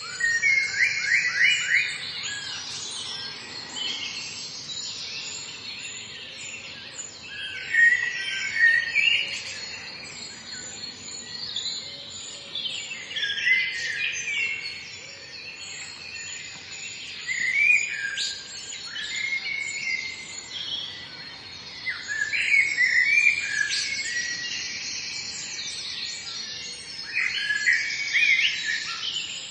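Woodland birdsong: several birds singing and chirping, with high trills and whistled phrases every few seconds.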